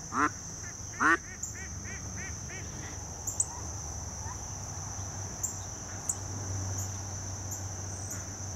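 Mallard ducks quacking: two loud quacks in the first second, then a quick run of softer calls at about four a second. A steady high insect drone runs underneath.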